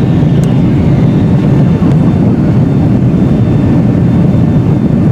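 Steady, loud cabin noise of a Boeing 757-300 in flight: the low roar of its jet engines and the air rushing past the fuselage, heard from inside the passenger cabin, with a faint steady whine above it.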